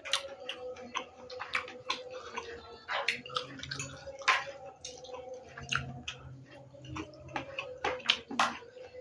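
Close eating sounds: chewing a mouthful of rice and squid with wet lip smacks, a quick irregular run of clicks. A faint steady hum lies underneath.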